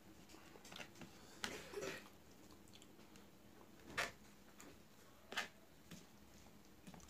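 Quiet eating by hand: fingers working rice on a plate and faint chewing, with a few short sharp clicks.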